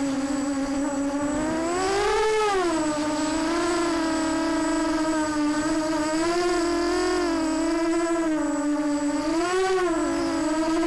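Walkera Runner 250 racing quadcopter's brushless motors and propellers whining as heard from its onboard camera. The pitch rises and falls with the throttle, with sharp climbs about two seconds in and again near the end.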